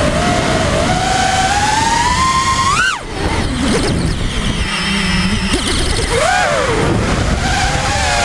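FPV racing quadcopter's brushless motors whining, the pitch climbing with throttle and then cutting off sharply about three seconds in. A few seconds of lower, uneven motor sound follow, then a brief rise and fall in pitch just after six seconds and a steady whine again.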